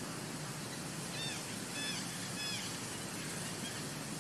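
A baby macaque giving three short, high, arched coo calls about half a second apart, over a steady hiss.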